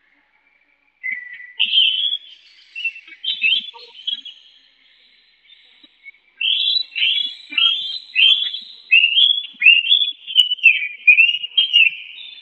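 Caged Chinese hwamei (Vietnamese họa mi) singing. Clear whistled phrases begin about a second in and stop for a short pause, then a fast run of repeated down-slurred notes follows.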